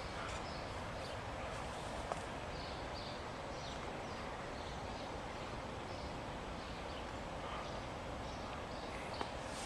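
Outdoor ambience: a steady background hiss with faint, scattered bird chirps.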